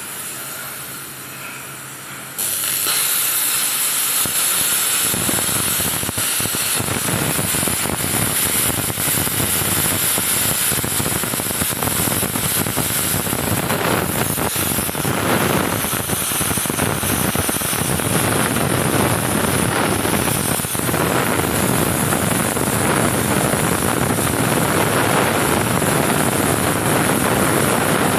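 CNC machine running, with a loud, steady, dense noise that sets in about two and a half seconds in and holds without a break.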